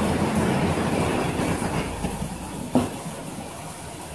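A steady low rumbling noise that fades after about two and a half seconds. Near the end there is a single sharp knock, a kitchen knife set down on the plastic cutting board.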